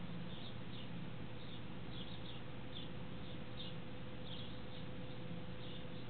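Steady hum of the refrigerator's fan running, with faint short high chirps at irregular spacing in the background. The compressor stays off between start-relay clicks, the sign of a bad start relay that fails to start it.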